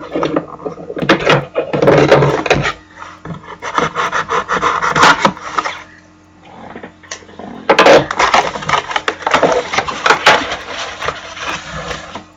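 A sealed trading-card box being opened by hand: its wrapping and cardboard rubbing, scraping and tearing in three noisy stretches, with a short quieter pause in the middle.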